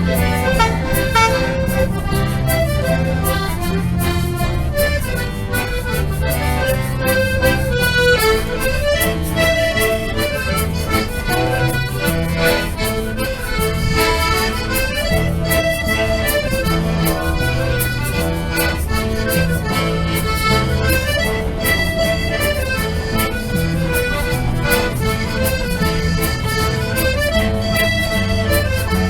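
Accordion playing a lively traditional dance tune: a melody over a steady, regularly alternating bass accompaniment.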